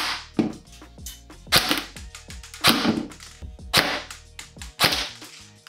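Airsoft rifle firing five single shots of 0.25 g BBs at an ExFog anti-fog unit, about one sharp crack a second, each with the BB's hit on the unit.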